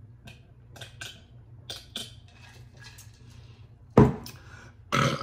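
Drinking from a metal can: faint sips and mouth sounds, then the can is set down on the table with one loud knock about four seconds in. A short vocal 'ah' follows near the end.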